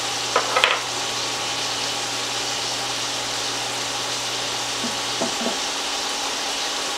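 Chicken breasts sizzling steadily in coconut oil in a frying pan, with a few light clinks of a spoon on a glass bowl around half a second in and again about five seconds in. A low hum underneath stops about five seconds in.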